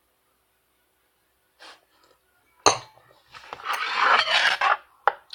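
A sharp click, then a rough rubbing scrape lasting about a second and a half, then a couple of short clicks near the end.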